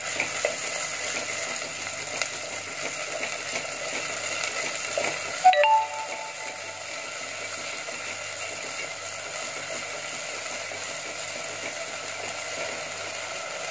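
Onions, tomato and ginger-garlic paste sizzling steadily in hot oil in a clay pot as they are stirred with a wooden spatula. About halfway through there is one short ringing clink.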